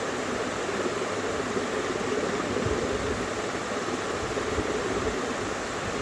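48-inch PBS ceiling fan running: a steady rush of air, with irregular low thumps underneath.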